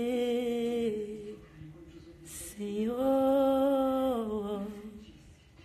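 A woman singing unaccompanied, holding two long notes. The first tails off about a second and a half in; the second rises in pitch about two and a half seconds in, is held, and falls away near the end.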